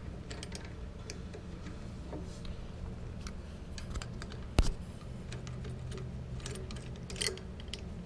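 Small Allen wrench clicking and scraping against the socket-head manifold bolts of a pressure washer pump as they are snugged down by hand, with scattered light metallic ticks and one sharp click a little past halfway, over a steady low hum.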